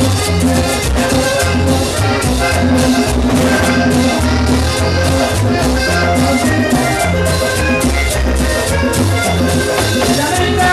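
Live vallenato band playing an instrumental passage: a diatonic button accordion carries the melody over bass, congas and the steady scraping rhythm of a guacharaca.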